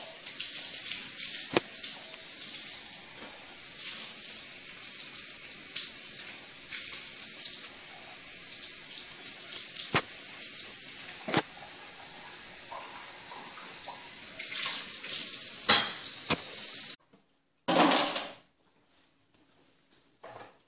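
Water running steadily from a kitchen tap, with a few sharp clicks and knocks. It cuts off suddenly about seventeen seconds in, followed by one short rush of noise and then near quiet.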